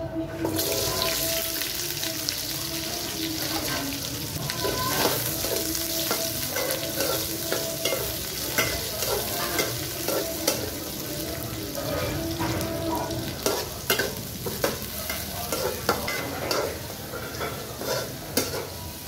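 Sliced onions hitting hot oil in an aluminium pot, sizzling from about half a second in. A spatula stirs them through the oil, with frequent clicks and scrapes against the pot.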